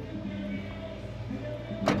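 Music with long held low notes, ending in a sharp click near the end.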